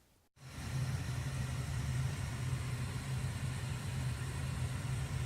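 A steady low mechanical hum with an even hiss over it, like a motor or engine running at idle. It starts abruptly at a cut near the beginning.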